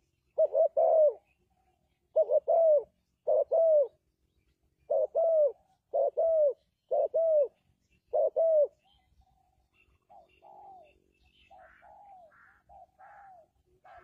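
Spotted dove cooing: seven loud phrases of two or three falling notes in the first nine seconds, followed by fainter coos mixed with higher chirping notes near the end.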